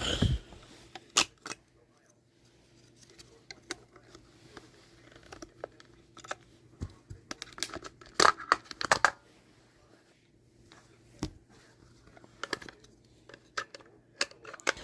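Objects being handled close by: scattered clicks and taps with some rustling, a cluster of sharper clicks about eight to nine seconds in, over a faint steady hum.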